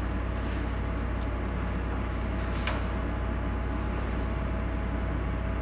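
Steady low hum of room machinery, with a few faint light clicks, the clearest a little under three seconds in.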